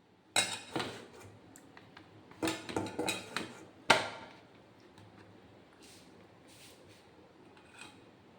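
Kitchen clatter of a fridge storage box and dishes being handled while marinated fish pieces are put into the box. There are a couple of knocks about half a second in, a cluster of clatters around three seconds, and one sharp knock at about four seconds, then only faint small handling sounds.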